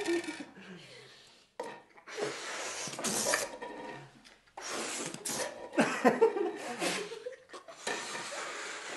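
People blowing hard into rubber balloons to inflate them: repeated forceful puffs of breath, with a few short squeaks from the balloons and some laughter.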